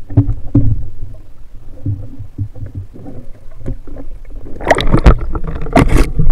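Muffled underwater knocks and water movement around a swimming diver, then loud splashing from about four and a half seconds in as the diver breaks the surface.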